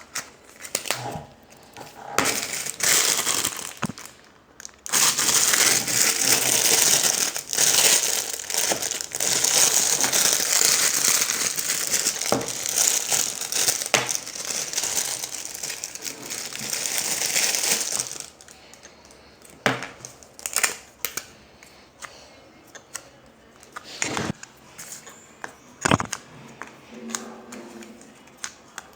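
Slime being squeezed and worked by hand, crackling and popping. The crackle is dense and loud from about five seconds in to about eighteen seconds, then thins to scattered single pops and clicks.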